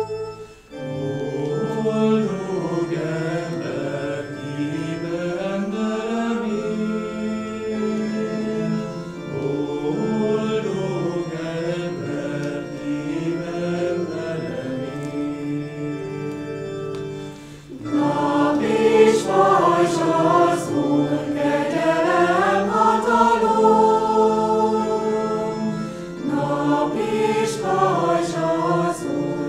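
Mixed choir of women's and men's voices singing. The singing breaks off briefly about a second in and again around the middle, coming back louder after the second break.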